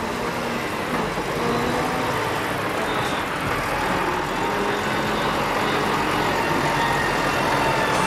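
Diesel engine of a Volvo FMX hooklift truck running as it drives past close by on a dirt track, growing slightly louder as it approaches.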